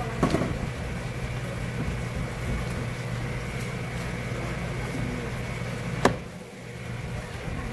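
Steady low machine hum with a few knocks, the loudest a single sharp knock about six seconds in.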